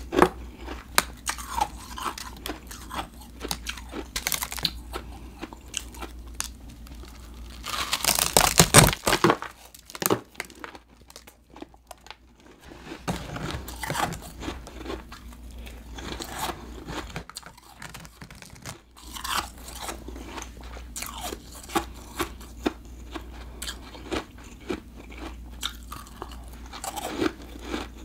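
Biting into and chewing a block of refrozen blended powdery ice, with crisp crunching bites and then chewing. A longer, louder stretch of crunching comes about eight seconds in, followed by a few quieter seconds.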